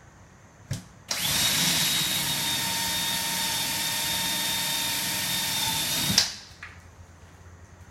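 Power drill with a 3/16-inch bit boring a screw hole through a drilling jig block into a cabinet door. A short knock comes first, then the drill runs steadily with a whining tone for about five seconds and stops abruptly, winding down.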